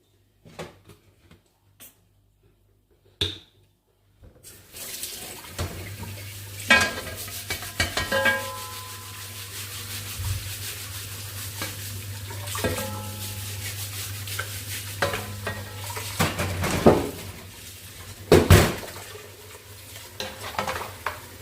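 Dishes, pans and cutlery clinking and knocking during kitchen work, some strikes ringing briefly. After about four seconds of near quiet, a steady low hum sets in underneath.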